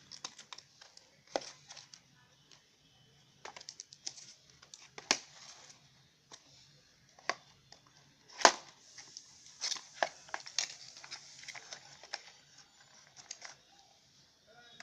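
Packaging being opened and handled to get at a small boxed charger: irregular crinkling, tearing and sharp clicks, with the loudest snap about eight and a half seconds in.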